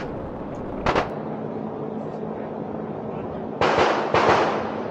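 Gunshots from the match's other bays: one sharp crack about a second in, then two more shots about half a second apart near the end, each with a short echo.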